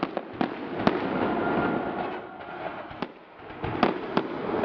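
Fireworks display: a run of sharp bangs over continuous crackling, with the loudest bangs about a second in and again near four seconds in.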